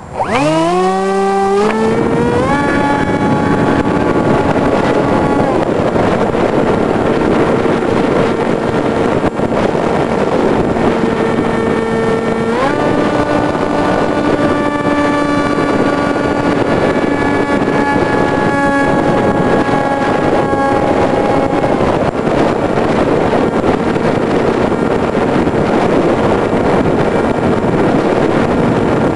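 Multiplex EasyStar RC plane's electric motor and pusher propeller whining under throttle, with heavy wind rush on the onboard microphone. The whine climbs sharply in pitch over the first two seconds, then holds; it steps up higher about twelve seconds in and settles back lower after about twenty-two seconds.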